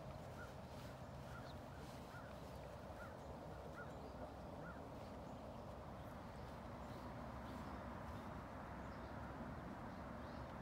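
Faint, evenly spaced hoofbeats of a Friesian mare trotting on sand arena footing, about one every three quarters of a second, fading out about halfway through as she moves away. A steady outdoor hiss lies underneath.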